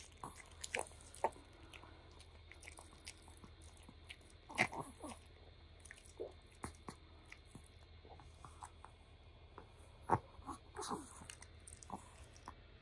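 Long-coat Chihuahua chewing a small treat and licking its lips and nose: scattered small crunches and wet mouth clicks, a few louder ones about four and a half seconds in and again about ten seconds in.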